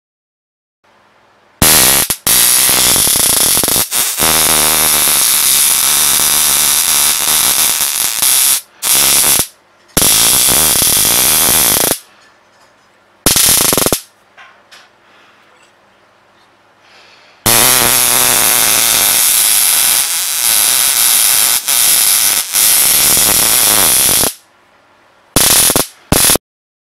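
Arc from a 1000 kV high-voltage inverter module buzzing and crackling as its electrodes discharge onto a fluorescent tube. It comes in bursts switched on and off, two of them lasting about seven seconds and the others under two seconds, with short gaps between.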